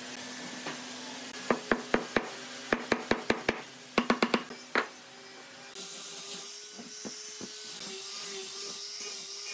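A steady motor hum, then about fourteen sharp knocks in three quick runs between roughly one and a half and five seconds in. After that, a different, higher-pitched motor hum starts up.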